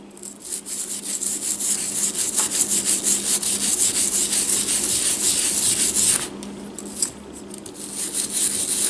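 Bristle brush scrubbing powder fouling off the oiled steel cylinder of a .22 revolver in quick back-and-forth strokes, a brisk scratchy rasping. The scrubbing eases off a little past two-thirds of the way through, then picks up strongly again near the end.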